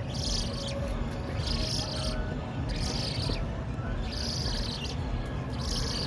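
Juvenile roseate spoonbill begging to be fed by an adult: high, wheezy calls about half a second long, repeated roughly every second and a half.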